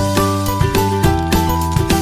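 Background music with a steady beat and bright tinkling notes.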